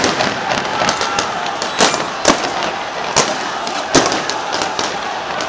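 Scattered gunfire: irregular sharp cracks, with a few louder shots roughly a second apart, over a steady street din.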